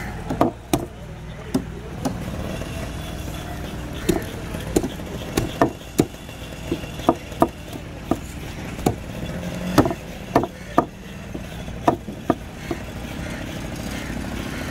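Heavy curved knife chopping trevally into pieces on a wooden board: about twenty sharp, irregular chops, some in quick pairs, over a steady low rumble of background traffic.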